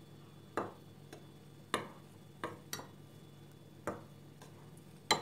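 A spoon clicking and tapping against the bowls as flour is scooped and added to cake batter a little at a time: about half a dozen light, irregular clicks.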